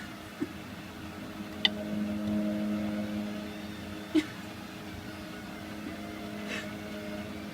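Hotpoint WML520 washing machine's motor humming steadily as it turns the drum to redistribute an unbalanced load of towels and bathmats before the spin, swelling a little about two seconds in, with a few short clicks and knocks.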